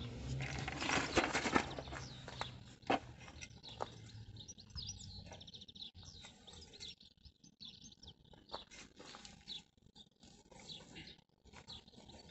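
Small songbirds chirping and twittering throughout. About a second in comes a loud burst of rustling and scraping from weeding: weeds pulled and soil worked with a garden tool, then a few sharp clicks.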